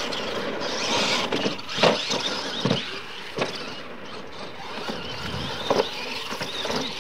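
Radio-controlled monster trucks racing on a dirt track, their motors and drivetrains whining as they speed up and slow down. Several sharp thumps as trucks hit and land off the ramps, the loudest about two seconds in.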